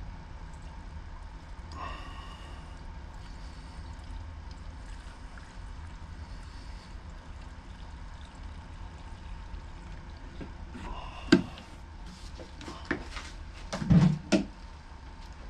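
Two-stroke fuel mix being poured into the string trimmer's fuel tank. Near the end come a few sharp knocks and clatter of handling.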